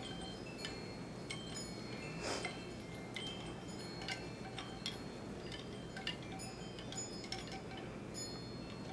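Wind chimes tinkling: irregular light metallic strikes with several overlapping ringing tones at different pitches. A brief rushing noise comes about two seconds in.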